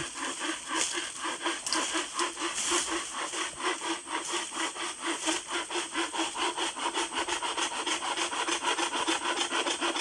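Hand saw cutting through a bamboo stem, with quick, even back-and-forth strokes.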